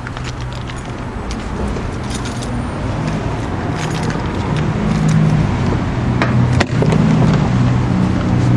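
Car engine running at a steady idle, growing louder, now that cleaned battery terminals let it start. A sharp click about six and a half seconds in.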